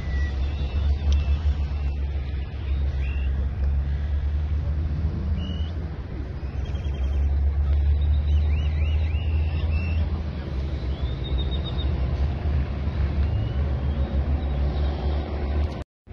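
Outdoor street ambience dominated by a steady low rumble from wind on the microphone and nearby vehicle engines, with a few faint high chirps in the middle. The sound drops out abruptly for an instant near the end.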